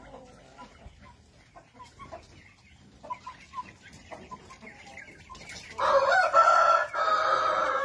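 Rooster crowing: one loud crow of about two seconds near the end, with a brief break near its middle, after a stretch of soft, scattered clucks from chickens.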